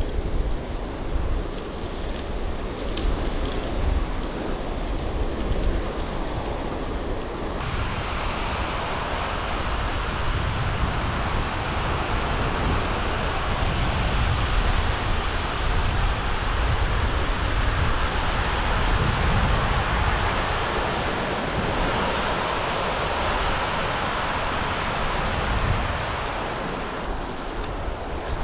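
Wind buffeting the microphone while cycling, a steady low rumble, joined about eight seconds in by the louder rushing hiss of a rocky river in rapids, which eases off near the end.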